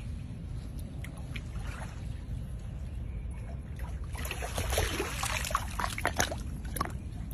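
American alligator lunging up out of a pond to snatch a piece of chicken: water splashing and sloshing for a couple of seconds from about four seconds in, with a few sharp clacks, over a steady low rumble.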